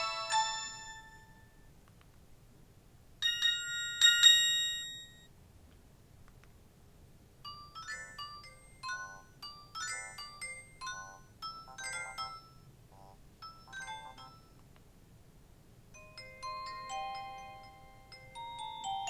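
Nokia 215 mobile phone playing a series of short electronic ringtones. The end of one tune comes first. A short two-note alert follows about three to five seconds in, then a quick melody of many notes from about seven to fourteen seconds. Another tune begins near the end.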